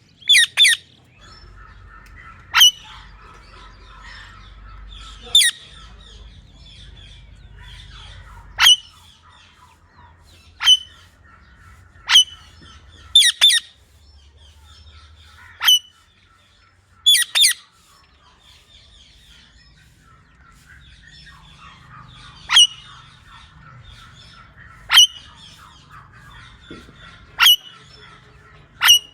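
Pet green parrot giving short, shrill squawks every two to three seconds, some in quick pairs, about a dozen in all.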